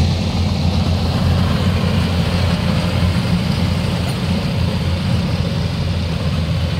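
Tracked rice combine harvester's diesel engine running steadily under load while it cuts and threshes rice, a continuous low hum with mechanical noise on top.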